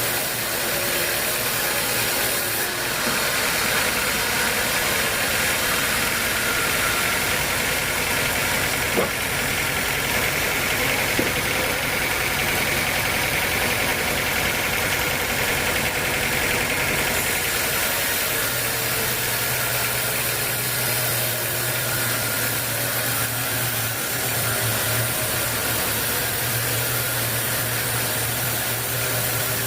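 Sawmill machinery running steadily. A higher whine sits on top from about three seconds in until about seventeen seconds, with two sharp ticks in the middle.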